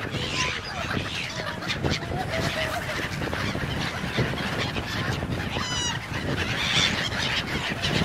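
A flock of gulls calling as they swoop overhead to be fed: short, scattered squealing cries, with a quick run of repeated notes about three-quarters of the way through. The calls sit over a steady rush of wind and choppy water.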